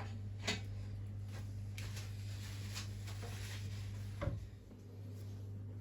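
Faint knocks and clicks of parts being handled on a stripped-down engine block while the work light is set, one sharper knock a little after four seconds in, over a steady low hum.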